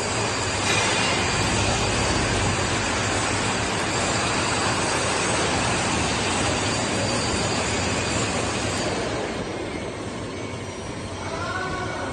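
Sanco SHM 11025R CNC horizontal boring mill running: a steady, dense mechanical noise over a low hum, easing slightly about nine seconds in, with a short pitched squeal near the end.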